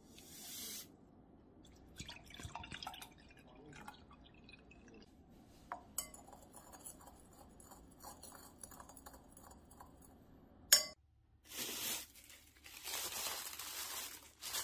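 Iced tea powder poured from a stick pack into a glass, liquid added, then a metal spoon stirring and clinking repeatedly against the glass, ending with one sharp tap. Near the end a plastic bag crinkles.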